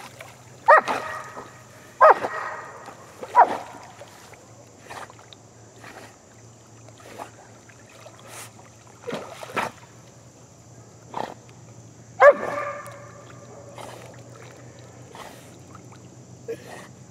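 A dog barking in short, sudden calls: three about a second apart in the first few seconds, then one more about twelve seconds in.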